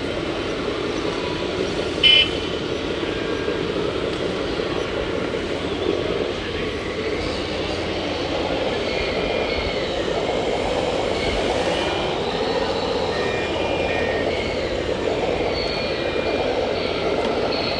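Radio-controlled model trucks running, their motors whining up and down in pitch over a steady mechanical hum, with one short, high toot about two seconds in.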